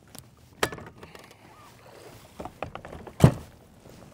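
Knocks and clunks of a bow-mount trolling motor being stowed on a bass boat's front deck. A sharp knock comes just under a second in, then a few light clicks, and the loudest thunk about three seconds in.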